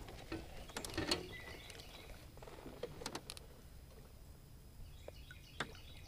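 A few faint knocks and taps, with birds chirping in the background.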